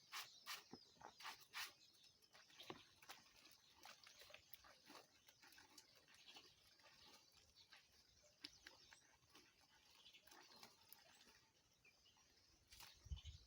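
Near silence with faint, scattered clicks and rustles from clothes being hand-washed in a stream, with a run of sharper clicks in the first two seconds.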